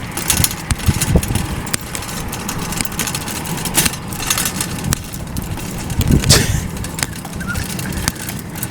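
Low rumble of street traffic, with a few sharp knocks and rustles, the loudest about four and six seconds in.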